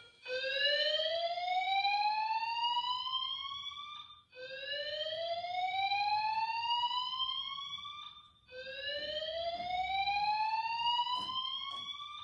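Fire alarm sound effect played from a soundboard app through an iPad's speaker. It is a whooping tone that rises in pitch over about four seconds, heard three times in a row with a short break between each rise.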